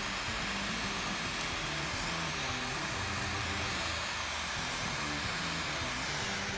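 Handheld gas torch burning with a steady hiss while it heats copper parts for soldering.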